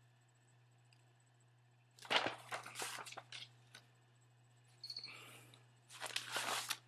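Paper instruction leaflet rustling and crinkling as it is handled, in three bouts: about two seconds in, around five seconds and near the end. A steady low hum runs underneath.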